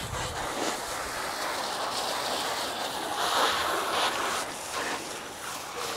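Water from a garden hose spray nozzle hitting a motorcycle: a steady hiss of spray and splashing, louder about three seconds in.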